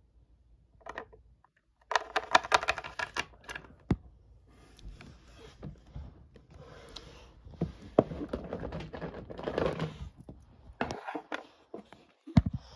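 Rapid clatter of keys on a computer keyboard, a dense run of typing about two seconds in, then scattered key clicks.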